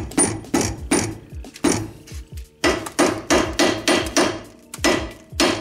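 Hammer blows on the steering knuckle and tie rod end, metal on metal, trying to knock the seized tie rod end stud out of the knuckle. The strikes come about three a second with a short pause around two seconds in, and each leaves a faint metallic ring.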